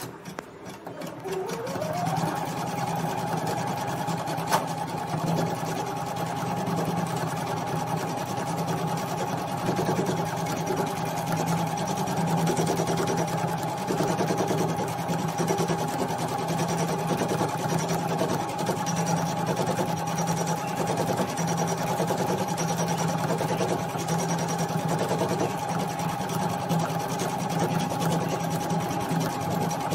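Usha Janome Memory Craft 450E computerised embroidery machine starting up and stitching, set to 400 stitches a minute. Its motor whine rises in pitch in the first couple of seconds, then holds steady over the fast even chatter of the needle, with a single click about four seconds in.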